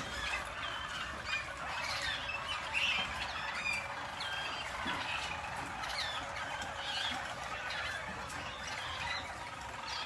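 Harz Roller (German Roller) canaries singing: a continuous dense rolling song with short whistled notes running over it.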